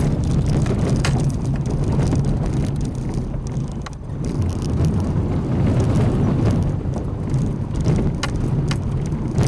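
Renault Oroch pickup driving over a rough dirt road, heard from inside the cab: steady engine and road rumble, with scattered knocks and rattles from the bumps, several of them near the end.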